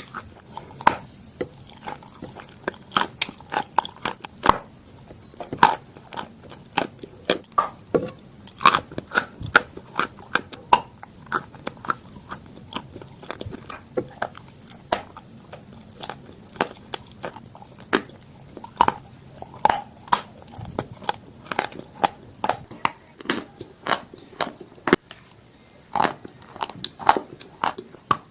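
Chalk being bitten and chewed close to the microphone: a dense, irregular run of sharp crunches and crackles.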